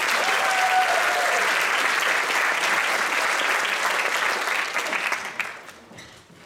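Audience and band applauding, a dense steady clapping that fades away over the last second or so.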